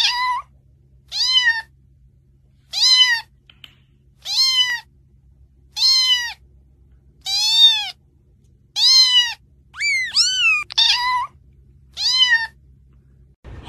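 A cat's meow played as a recording to call a cat: about ten calls, roughly one every second and a half, each rising and then falling in pitch.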